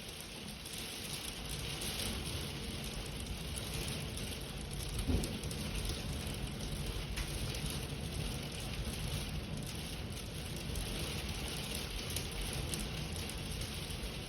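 Heavy rain falling with wind: a steady, even hiss over a low rumble, fading in at the start. There is one dull thump about five seconds in.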